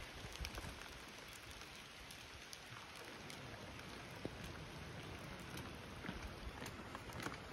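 Faint steady patter of light rain, with scattered drips ticking now and then.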